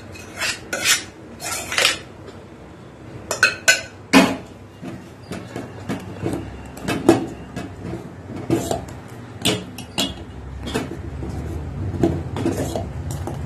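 A metal spoon clinking and scraping against a steel pressure cooker and pot while cooked mung dal is emptied into the payasam, with the loudest knock about four seconds in. After that come softer sounds of a ladle stirring through the thick milky payasam in a stainless steel pot.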